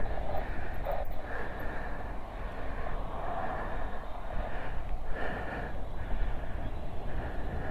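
Wind rumbling on the microphone while riding an electric bike, with a hiss that comes and goes every second or so.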